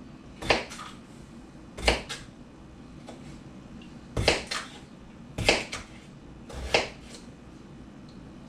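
Kitchen knife chopping through potatoes and striking a cutting board: about five sharp knocks, a second or more apart.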